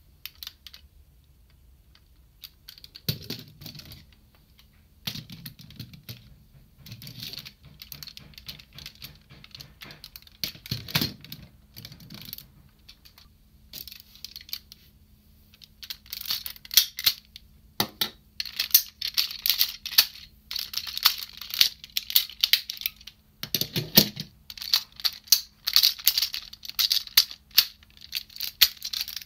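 Plastic clicks, snaps and rattles of a DX Diesel-Oh toy robot being taken apart into its train cars by hand, its hinged parts folding and locking. Sparse clicks at first, then a dense run of clicking through the second half.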